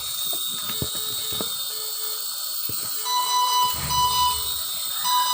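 Electronic alarm beeping in pairs of short, loud tones from about three seconds in, over a steady hiss that fits a running nebulizer.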